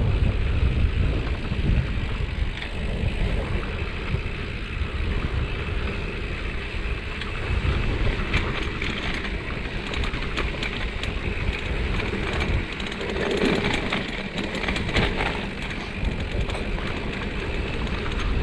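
A bicycle rolling along a concrete path: a steady low rumble of the tyres and wind on the microphone, with frequent small rattles and clicks from the bike.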